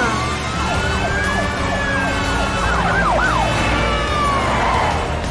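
Cartoon emergency-vehicle siren wailing in one slow rise and fall, crossed by quick falling whistle-like sweeps.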